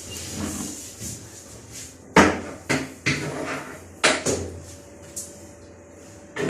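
Several sharp knocks and clunks, hard parts being handled or set down while working on a washing machine: a cluster of about five in two seconds, then a louder one near the end.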